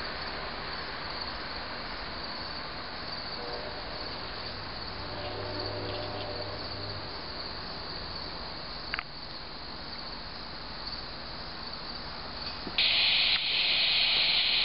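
Steady chorus of crickets and other insects with a faint train rumble dying away. About 13 seconds in, a handheld radio scanner opens up with loud, sudden static hiss.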